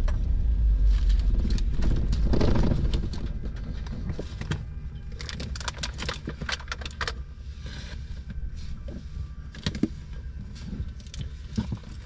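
Beechcraft Baron 58TC's twin engines running at idle, then shut down about three seconds in, the rumble dying away. After that come scattered clicks and rattles of handling in the cockpit.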